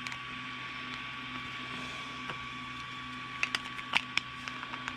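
Steady hum from the Creality Ender 3 V2 3D printer's fans, with a few sharp clicks about three and a half to four seconds in.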